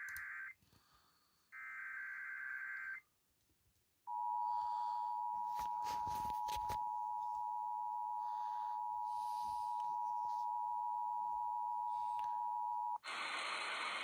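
Emergency Alert System tones from a radio receiver: two buzzy bursts of the digital SAME data header, the second about 1.5 s in, then from about 4 s in some nine seconds of the steady two-tone attention signal. Near the end the tone cuts off and a loud hiss of static follows.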